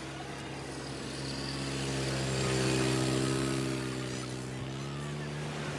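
A vehicle engine running with a steady hum, swelling to a peak about halfway through and fading again, as a vehicle passing close by does.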